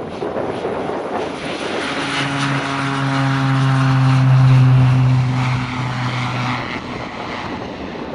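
Cessna 208B Grand Caravan's PT6A turboprop at takeoff power. Wind rushes on the microphone at first, then the propeller's low drone comes in about two seconds in, holding a steady pitch. It is loudest around the middle and fades as the aircraft climbs away.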